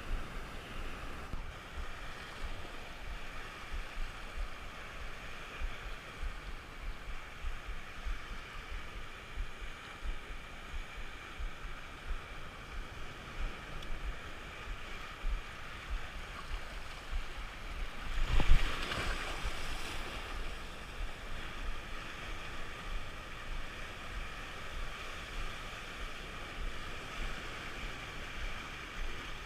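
Rough sea surf washing steadily, with gusts of wind buffeting the microphone. A bigger wave breaks loudly about two-thirds of the way through.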